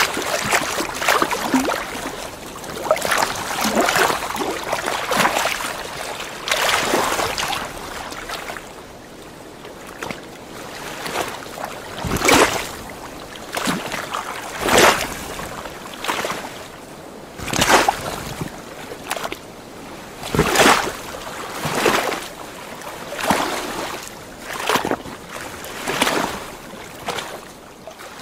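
Water splashing in a series of short swishes, close together for the first several seconds, then coming one to three seconds apart over a faint steady wash of water.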